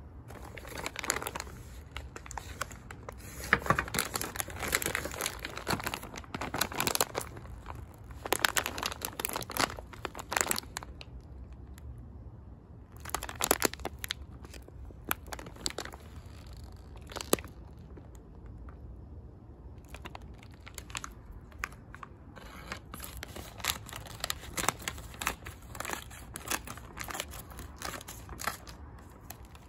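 Clear plastic bag crinkling and crackling as it is handled, in irregular clusters of sharp rustles with short quiet gaps, the longest about twelve seconds in.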